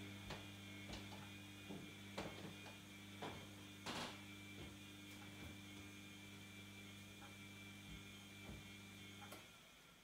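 Bosch WAA28165GB washing machine giving off a faint, steady hum, with faint scattered clicks; the hum stops about nine seconds in.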